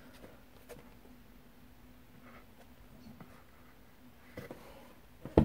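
Faint rustling and light taps of a paperback manga volume being handled and turned over, then a single brief thump near the end.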